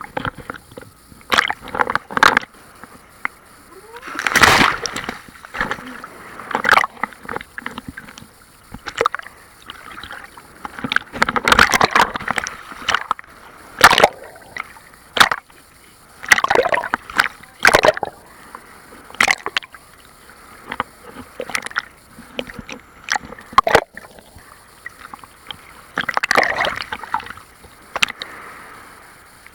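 Sea waves splashing and sloshing in irregular bursts every second or two.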